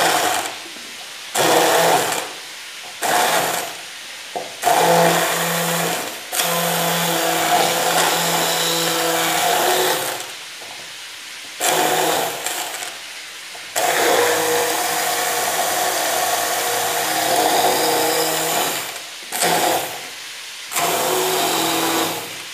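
Bosch hand blender running in its plastic beaker, puréeing garlic cloves with ground spices and a little hot water. It is switched on and off about eight times in short bursts, the longest run lasting about five seconds.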